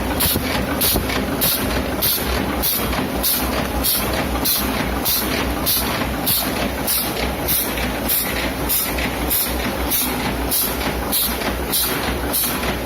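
Homemade curtain-wire making machine running: a steady low motor hum with a regular high-pitched stroke repeating a little under twice a second.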